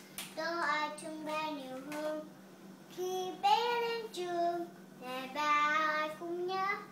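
A young girl singing unaccompanied, a song in Vietnamese, in three phrases of held and gliding notes with short breaths between them.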